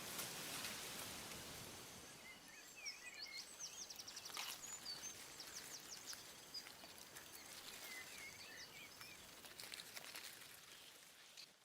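Faint outdoor ambience with birds chirping now and then; the ambience fades out near the end.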